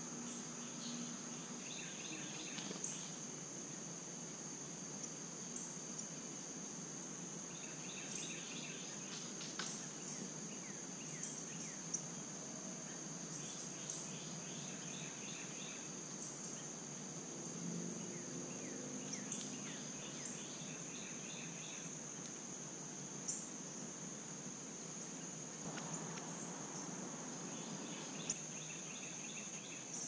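A steady high-pitched drone of insects, with a bird singing short phrases of quick repeated notes every several seconds. A few soft clicks stand out here and there.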